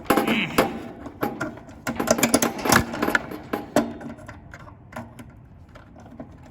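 Quick metallic clicks and rattles of hands working compressor wires off an air-conditioner contactor's terminals, thinning out after about four seconds.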